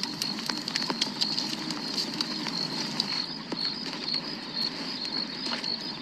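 Bonfire crackling with many sharp pops, over a steady high-pitched chirping of night insects.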